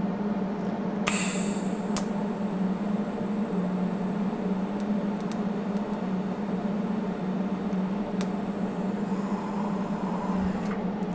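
Steady hum of workshop equipment, with a short hiss about a second in and a few light clicks.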